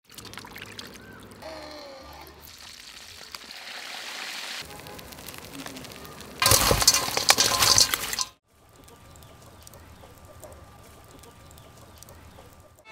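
Crispy deep-fried frogs rustling and clinking as hands toss them in a metal bowl, then a loud hissing burst of about two seconds that cuts off suddenly, followed by faint crackling of a charcoal fire.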